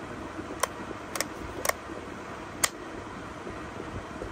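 Plastic rocker switch on a Total heat gun clicking as it is flipped between its off, I and II settings: four sharp clicks in the first three seconds, over a steady rushing noise.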